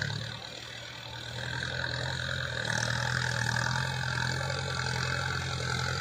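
XCMG crawler excavator's diesel engine working under load, with a steady high whine, as the boom lifts a full bucket of sand; the sound swells about a second and a half in.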